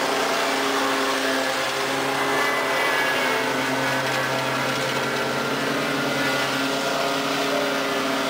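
Walk-behind lawn mower engine running steadily under load while cutting grass, a constant hum that keeps an even pitch.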